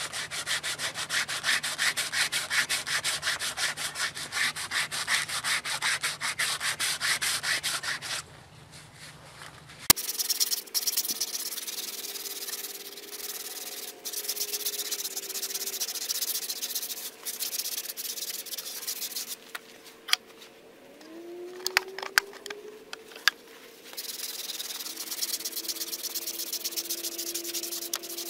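Sandpaper on a hand sanding block rubbed quickly back and forth along the side of a wooden chopping-block round, in fast, even, scratchy strokes. About eight seconds in the strokes stop, then come back softer and in spurts, with a short pause and a few clicks around twenty seconds, before steady strokes resume.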